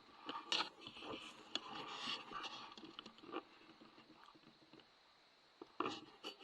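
Close rustling and scraping of gear or clothing being handled, with a few sharp clicks, loudest about half a second in and again near the end.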